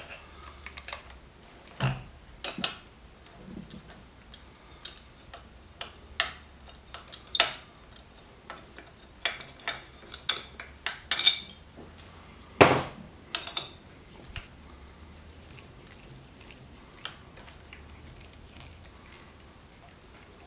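Hand tools and loose metal parts clinking and clanking during wrench work on a motorcycle's front end: irregular sharp metallic taps, the loudest about twelve seconds in, then only faint scattered ticks.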